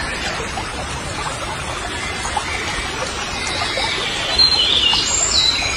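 Birds chirping over a steady background hiss, with louder, higher chirps from about four seconds in.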